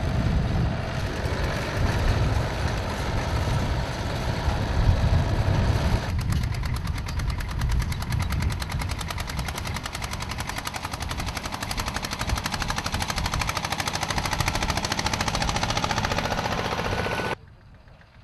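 Vintage farm tractor engines running in a hay field: first a tractor working a hay rake, then, from about six seconds in, an old orange Renault tractor's engine running with an even, rapid exhaust beat. The sound cuts off sharply near the end, leaving only a faint background.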